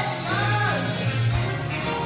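Teenage girls singing a song into a microphone with musical accompaniment. A sung note bends downward about half a second in.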